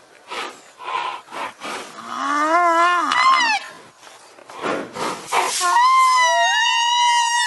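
Rhinoceros calls: a few short breathy blasts, a wavering squealing call a couple of seconds in, then a long high-pitched squeal starting near the end.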